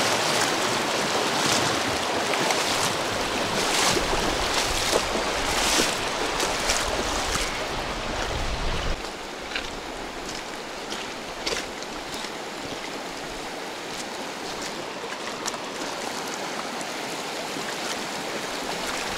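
Mountain river rushing, a steady dense water noise, with a few light clicks and knocks scattered through and a low rumble that stops about halfway.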